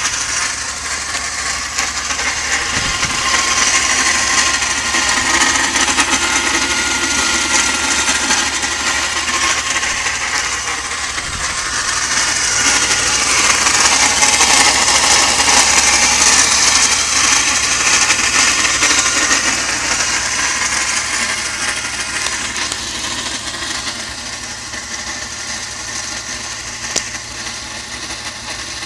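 BMW straight-six engine (the 2.8-litre unit from an E39 528i, fitted in an E36) running, with a mostly high-pitched mechanical noise that the owner cannot trace after replacing or checking the mass airflow sensor, idle control valve, crankcase ventilation valve and hoses. It gets louder in the middle and eases off toward the end.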